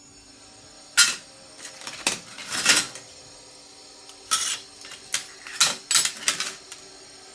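Pieces of scrap aluminium from a PC case clattering and clanking against metal: about eight sharp knocks and short scrapes in irregular clusters, over a faint steady hum.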